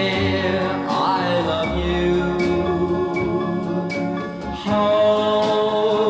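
1950s pop record playing: sustained backing vocals or instruments over guitar and a steady beat.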